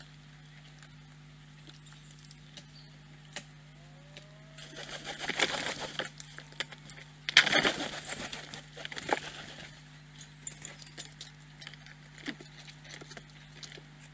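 Wood pigeon's wings clattering as it takes off from the log, a loud flurry of wing beats about seven seconds in, after a first noisy flurry about five seconds in. Scattered light scratches and taps over a faint steady hum.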